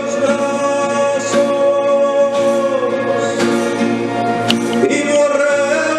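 Guatemalan choir singing in long held notes with instrumental accompaniment.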